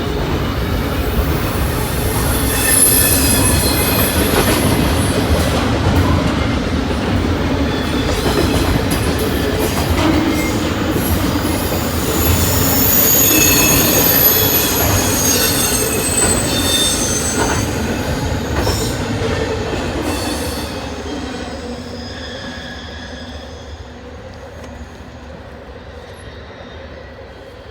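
Norfolk Southern freight train rolling past with a steady rumble of wheels on rail and high-pitched wheel squeal, fading away over the last several seconds.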